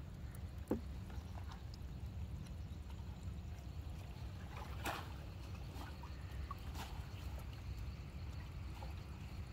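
Water trickling and splashing as a fishing net is worked from a small wooden boat, with scattered small knocks over a steady low rumble. One sharp knock comes about a second in, and a larger splash near the middle.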